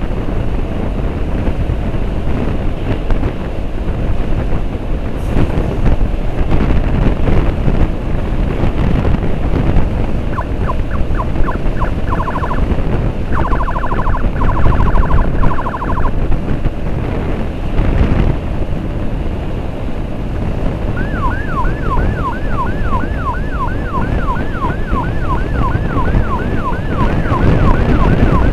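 Wind buffeting the microphone over motorcycle road noise on a moving escort bike. An emergency siren cuts in with two short bursts of a rapid warble about ten and thirteen seconds in, then sounds a repeating rising wail, about two sweeps a second, from about twenty-one seconds in.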